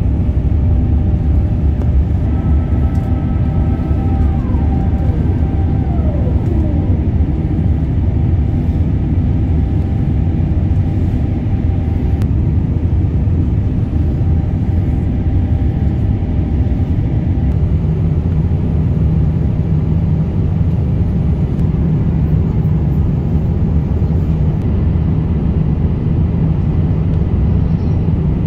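Cabin noise of an Airbus A350-900 climbing after takeoff: a loud, steady low rumble from its Rolls-Royce Trent XWB engines and the airflow, with a few thin whining tones that glide down in pitch about four to seven seconds in.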